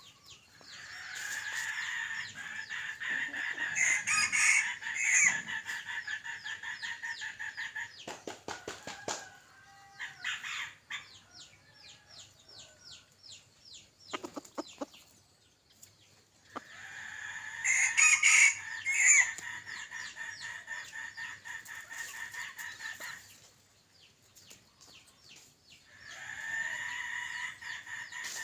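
Red junglefowl decoy rooster crowing a few times, with clucking in between.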